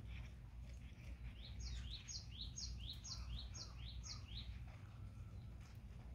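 A small bird singing a quick, repeated two-note phrase, each note a short rising chirp, about eight times over three seconds, over a low steady hum.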